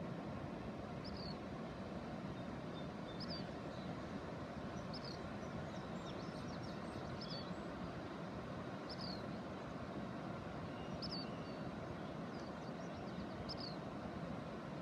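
Steady low rushing noise, with a bird repeating a short, high chirp every second or two.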